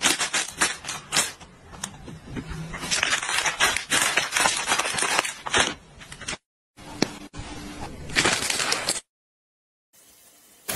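Plastic packaging crinkled and rustled in a hand, a fast, irregular crackle. It breaks off about six seconds in, starts again briefly, then stops with about a second of silence before the end.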